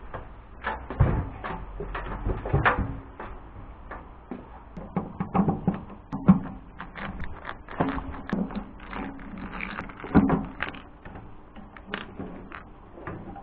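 Hands handling the plastic casing of a JET AFS-500 air filtration unit, then a screwdriver working the screws of its control-panel cover. It makes an irregular run of knocks, clicks and scrapes, with louder thumps about a second in, after two and a half seconds, near six seconds and near ten seconds.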